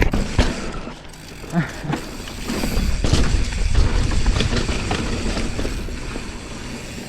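Mountain bike riding a dirt trail, heard from a camera on the rider: wind rumbling on the microphone, swelling in the middle, over tyre noise and the rattle and clicking of the bike.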